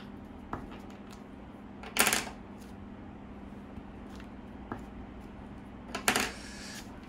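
Hanko seals being pressed onto paper document pages on a wooden desk and handled at their ink pad and case: a few short knocks and taps, the loudest about two seconds in and about six seconds in.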